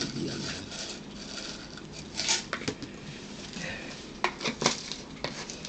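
Cutlery clicking against a plate and bowl while eating: a handful of short, sharp clicks, mostly in the second half.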